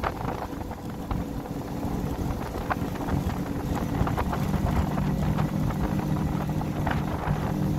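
Mercury 150 hp four-stroke outboard running at high speed, pushing a tri-toon pontoon boat near 39 mph, with wind rushing over the microphone. The engine's tone grows stronger about halfway through, and there are occasional faint knocks as the hulls meet rough water.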